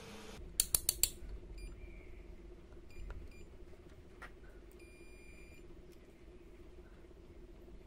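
Digital multimeter beeping as its test probes are worked: a short beep, then one longer beep about five seconds in, the tone a meter's continuity buzzer gives when the probes touch a connection. Before that, a few sharp clicks just before a second in.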